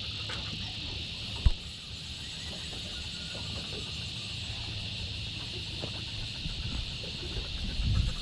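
A steady, high-pitched insect chorus buzzing from the bush, over a low rumble that swells briefly near the end. One sharp knock stands out about one and a half seconds in.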